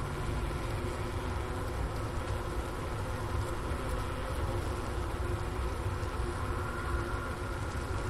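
Overwintering honeybee colony humming inside its hive, a steady low drone with faint higher tones above it, picked up close by at the inner-cover hole.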